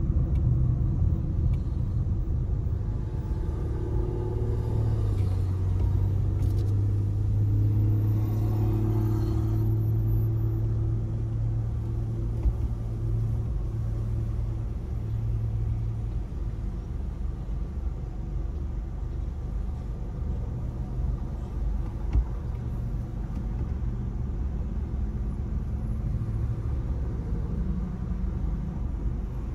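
Low, steady rumble of a car as it slows to a stop at a red light, then a quieter rumble as it sits idling.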